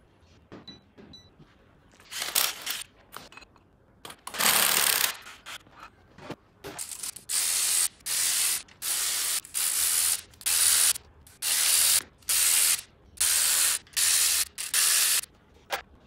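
Ratchet wrench being worked on bolts in an engine block: a few separate strokes, then from about halfway through a steady run of about a dozen even back-and-forth strokes, a little over one a second.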